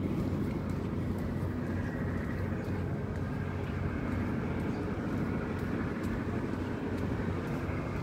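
Steady low rumble of outdoor background noise, even throughout, with no distinct event standing out.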